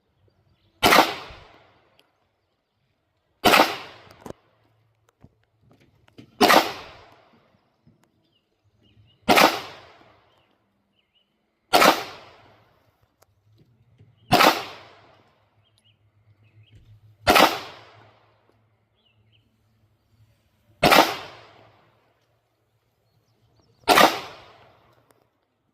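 Canik Rival 9mm pistol fired in slow, deliberate single shots: nine shots about every three seconds, each cracking sharply and dying away in a short echo.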